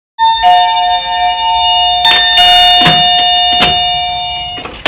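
Electronic doorbell chime ringing: steady, bell-like tones held and slowly fading, struck again about two seconds in. A few sharp clicks of a door's thumb-turn lock being turned come in the second half.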